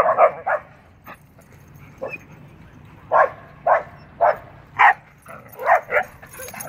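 A husky and a Rottweiler at rough play, giving short yips and barks: a quick cluster of three at the start, then a run of them about two a second from about three seconds in.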